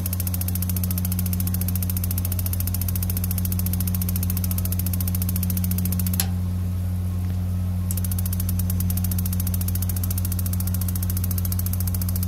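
Tankless gas water heater's spark igniter ticking rapidly and continuously over a steady low hum from the unit, pausing for a second or two midway and then starting again. The burner never lights because the gas solenoid valve will not open.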